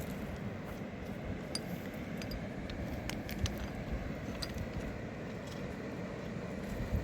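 River water rushing steadily, with a few light clicks scattered through the middle.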